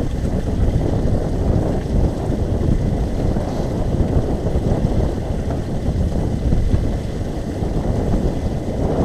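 Wind buffeting the microphone on an open boat: a steady, low rumbling noise that wavers in strength.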